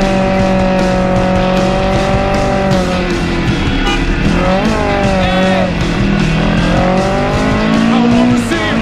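Background music: sustained chords with notes that slide up and down, over a steady beat.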